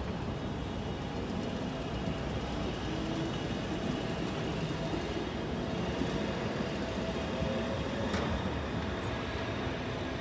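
Fukui Railway two-section articulated streetcar moving off along a street track: a steady rumble of wheels and running gear mixed with passing road traffic. A faint steady hum sits over the rumble, and there is a single sharp click about eight seconds in.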